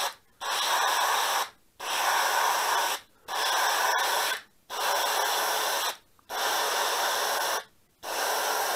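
Airbrush spraying diluted black paint in short passes: a hiss of air and paint switched on and off about six times, each pass a little over a second long with brief silences between.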